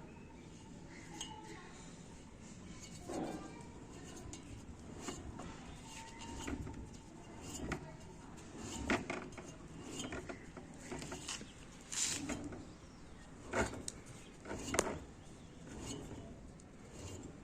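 Irregular clinks and knocks, as of hard objects being handled and set down, the loudest about nine, twelve, thirteen and a half and fifteen seconds in.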